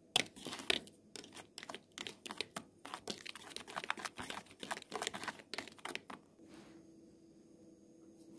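A utensil stirring dry seasoned flour in a bowl: quick scraping and ticking against the bowl's sides, stopping about six seconds in.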